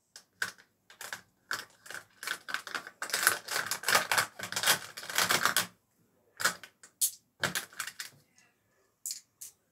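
Rapid, irregular clicking and clattering of small hard objects being handled. It is densest in the middle and thins out into a few separate clicks near the end.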